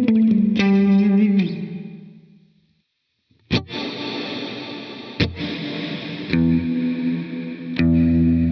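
Electric guitar played through the FLAMMA FS02 reverb pedal. A run of picked single notes rings out and fades away with its reverb tail. After a brief silence come four strummed chords, each left to ring, the last one the loudest.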